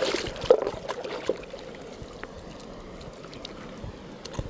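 A hand splashing in shallow river water among stones, with several sharp splashes in the first second and a half, then the steady trickle of the river flowing over the rocks.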